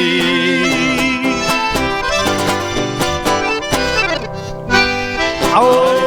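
Instrumental ending of a sertanejo song: the band holds a chord, then plays runs of quick notes after the last sung line.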